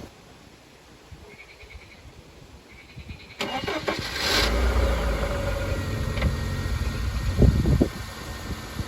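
An engine starting about three and a half seconds in, then running with a steady low rumble that eases a little near the end.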